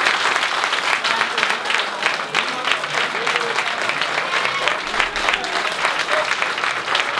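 A small group of people applauding: many hands clapping steadily, without a break.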